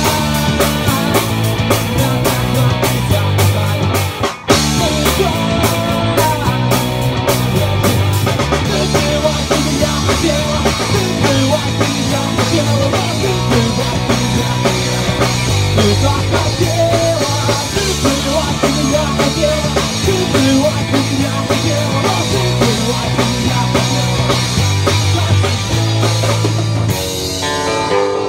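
Instrumental rock music with a drum kit and a repeating bass line, with a brief stop about four seconds in; about a second before the end it changes to a lighter passage.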